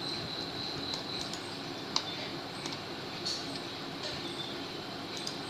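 Steady background hiss with a few short computer mouse clicks, the sharpest about two seconds in.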